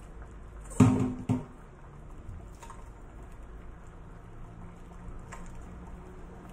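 Metal ladle clanking twice against a stainless steel cooking pot, two sharp knocks half a second apart with a brief metallic ring, followed by a few faint clinks and quiet sloshing of the fruit compote as it is ladled.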